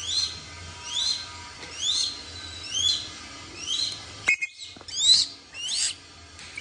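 A young hawk calling over and over, short rising calls about one a second, louder near the end. A sharp knock comes a little after four seconds.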